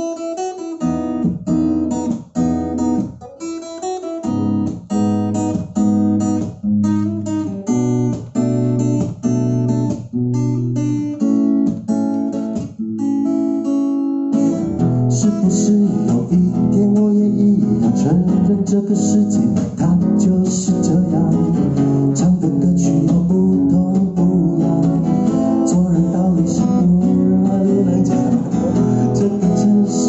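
Acoustic guitar strummed: separate chords struck with short gaps between them, then about halfway through it turns into continuous, fuller strumming.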